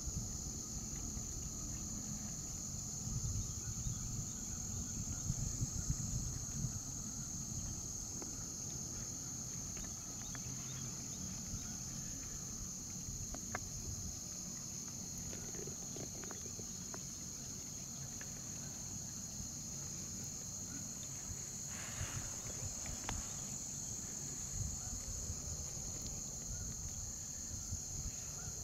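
Steady, continuous high-pitched insect chorus in a late-summer marsh, over a low rumble and a few faint clicks.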